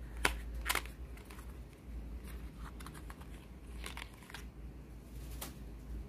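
A small cardboard box being handled and opened, with paper rustling: a few sharp clicks and crinkles, the loudest just under a second in.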